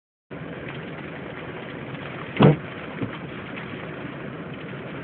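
Steady rain noise on a truck, heard from inside the cab, with faint scattered ticks of drops or hail. A loud thump comes about two and a half seconds in and a fainter one about half a second later.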